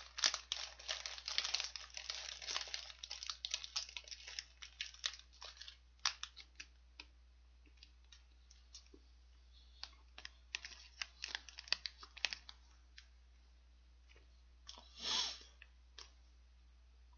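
Plastic wrapper of a Lotte Custard cake crinkling in the hands, close to the microphone, along with the mouth sounds of biting and chewing the soft sponge cake. The crackling is dense for the first few seconds, then thins out to scattered clicks, and there is a short hissing rustle about fifteen seconds in.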